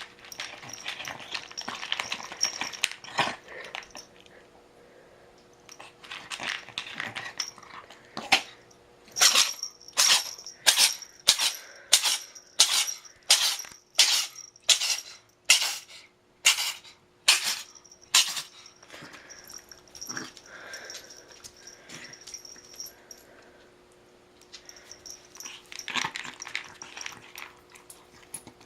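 Dog making a run of about fourteen short, sharp, evenly spaced sounds, roughly one and a half a second. Quieter irregular scuffling comes before and after them.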